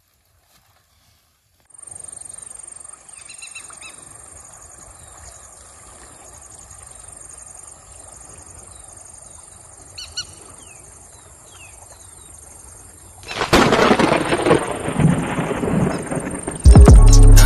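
Open-country ambience: a steady high-pitched insect drone with a few short bird chirps. About two-thirds of the way in, a loud crash and rumble of thunder comes in and stays loud.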